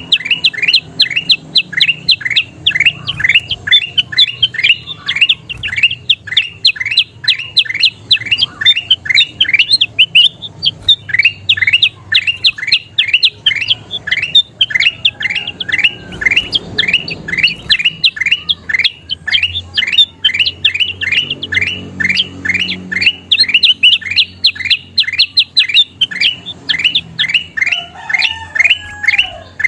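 Kutilang emas bulbul singing a fast, unbroken string of short sweeping chirps, several a second, with brief pauses now and then.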